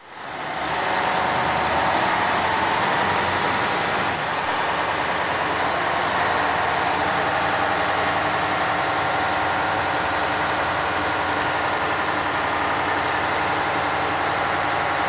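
Engine of a small wooden passenger ferry (bumboat) running steadily under way, heard from inside the cabin. It fades in over the first second and then holds at a loud, even level.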